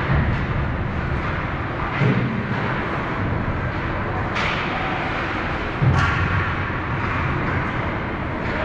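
Ice rink din during a hockey game: a steady wash of noise broken by sharp knocks and thuds about two, four and a half, and six seconds in, the last the loudest.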